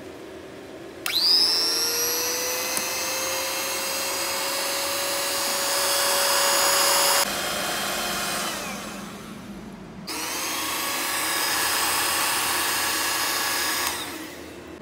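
Handheld electric mixer with twin beaters whipping cream in a plastic beaker. The motor starts about a second in with a rising whine as it spins up and runs steadily. At about seven seconds it drops and winds down, then starts again about ten seconds in and runs until near the end.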